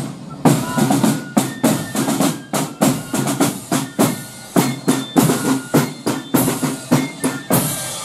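A marching band's side drums beating a steady marching rhythm, with rolls and accented strokes.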